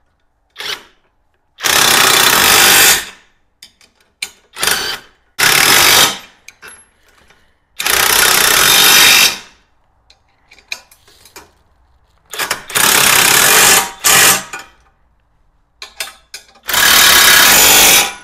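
Alloyman 20-volt half-inch cordless impact wrench hammering on suspension-bracket nuts and bolts in several short bursts, each about half a second to a second and a half long, with small clicks of handling between them.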